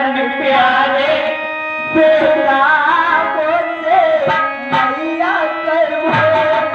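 A singer's voice amplified through a microphone, melismatic and wavering, over a harmonium holding steady notes and tabla strokes.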